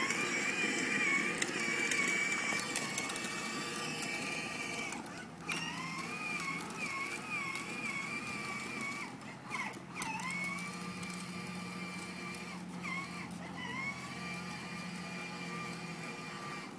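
Small electric motor and gearbox of a battery-powered toy ride-on quad whining steadily as it drives. The whine cuts out and winds back up a few times, dipping in pitch each time, as the throttle is let go and pressed again.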